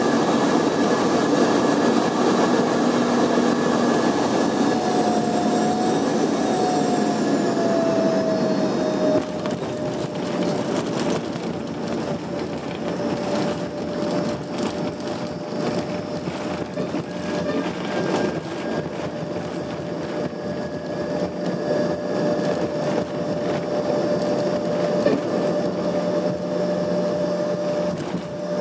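Cabin sound of an Embraer ERJ-145 landing. The Rolls-Royce AE3007 turbofans run loud on short final and their whine falls as the thrust comes back to idle. About nine seconds in the jet touches down and the noise drops suddenly; the cabin then rattles and knocks over the runway rumble as it rolls out, with a steady engine whine underneath.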